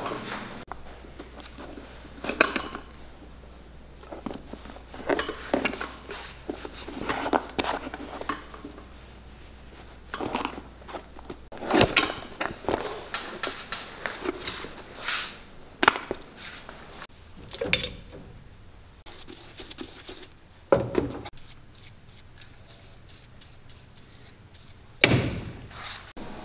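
Hand-stitching a PVC welt onto a boot with waxed thread: irregular swishes and soft taps as the thread is drawn tight through the welt, with a few sharp knocks, the loudest near the end.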